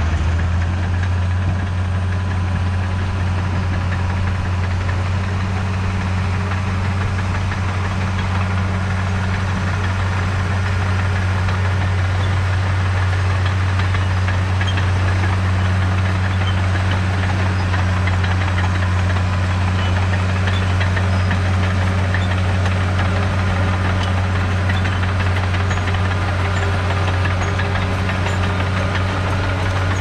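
John Deere crawler dozer's diesel engine running steadily as the machine pushes and levels gravel with its blade.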